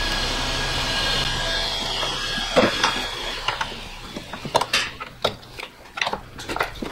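A hand tool clicking and scraping on radiator hose clamps as the small overflow and bypass hoses are worked loose, in sharp, irregular clicks and knocks from about two and a half seconds in. A steady hiss runs underneath before the clicks start.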